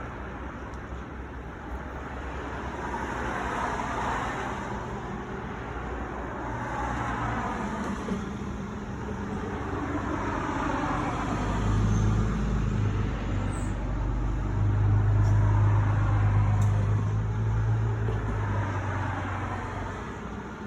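Road traffic going by: the rush of passing vehicles rises and falls, with a low engine hum that builds to its loudest in the second half and then eases off.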